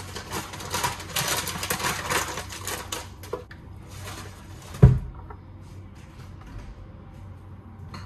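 A plastic packet crinkling as it is handled for about three seconds. Just before the five-second mark a single loud thump, a kitchen cupboard door shutting, is followed by quieter small knocks and handling noises.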